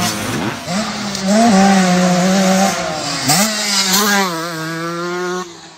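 Suzuki RM144 two-stroke motocross bike engine revving hard, its pitch rising sharply several times as it accelerates and holding high between rises, then falling away near the end.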